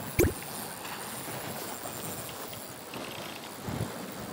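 Steady wind noise, with one sharp, loud thump about a quarter of a second in and a softer knock near the end.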